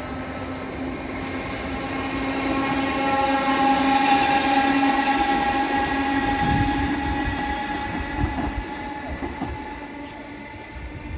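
A multiple-unit passenger train passing close by, its steady many-toned whine swelling to a peak about four seconds in and then fading as it moves away. Low thumps from the wheels come through in the middle of the pass.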